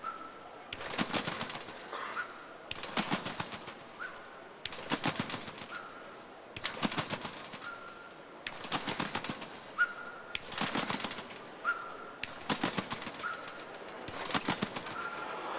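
Competition string-bed trampoline clattering as a gymnast lands and rebounds, eight landings about two seconds apart, each a rapid rattle of clicks from the bed and springs. After each landing comes a brief, high whistling sound from the athlete's sharp exhale.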